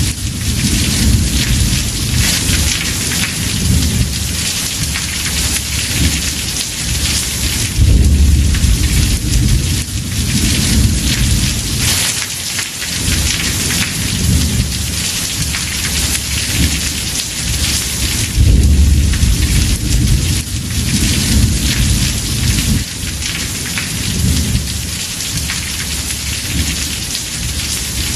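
Heavy rain drumming steadily on a house roof, with rolling thunder rumbling underneath. The thunder swells and fades several times, with the loudest rumbles about eight and eighteen seconds in.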